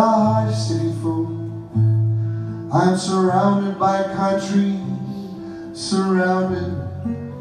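Live band music: acoustic guitar with sustained bass notes, and a man singing phrases that come in about every three seconds.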